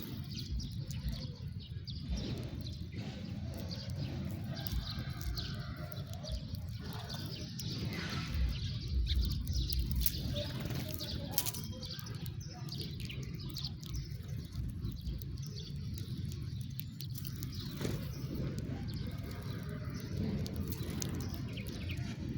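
House sparrows chirping, scattered short chirps over a steady low background rumble.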